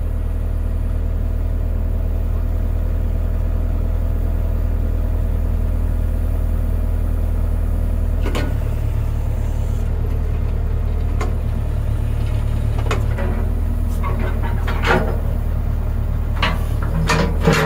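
Backhoe's diesel engine running steadily, with a slight change in its note about eight seconds in. Sharp knocks and clanks come more and more often near the end.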